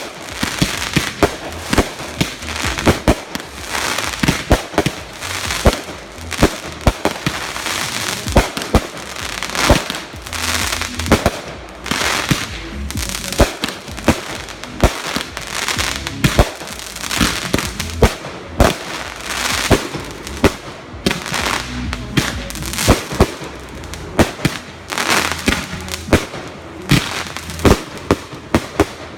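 Fireworks going off in quick succession: many sharp bangs and pops, several a second throughout, with crackle and hiss between them.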